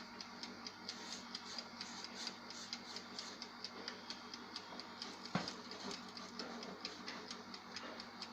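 Mechanical oven timer ticking quickly and evenly, about four to five ticks a second, with a single sharp knock about five seconds in.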